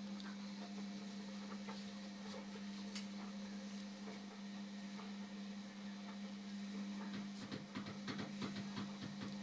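Indesit washing machine running mid-cycle: a steady low hum, joined about seven seconds in by rapid, irregular clicking and crackling.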